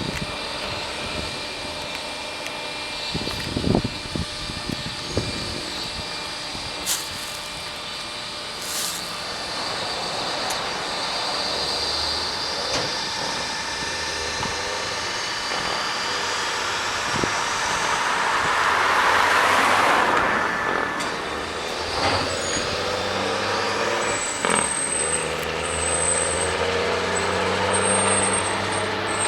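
Mack Granite roll-off truck's straight-piped diesel engine running, with a loud burst of air hiss about two-thirds of the way through.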